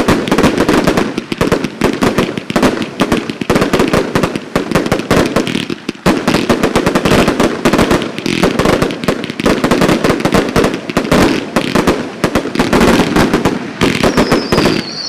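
A 250-shot Collision Thunder firework cake firing a dense, rapid barrage of bangs, many a second without a break. A thin high whistle joins near the end.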